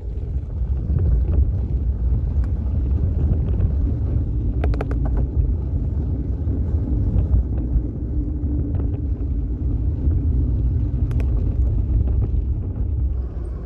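Wind buffeting a phone microphone mounted on a moving bicycle, over the rumble of the tyres on a forest track, with a few sharp rattles from bumps. The noise dies away near the end as the bike slows.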